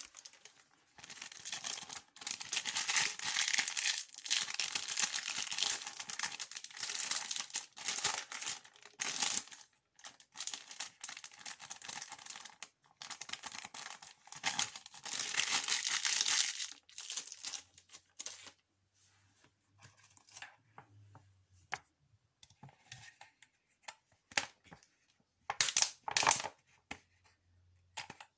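Close-up ASMR crinkling and tearing sounds, handled in long dense bursts, which thin out to scattered crackles and taps about seventeen seconds in.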